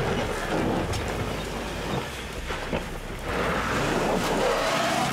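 Ford Ranger turbo diesel pickup pulling hard uphill on loose dirt and rock, its wheels spinning and scattering gravel with scattered crunches and clicks; the engine note rises near the end. The wheels slip because the truck has no rear axle lock.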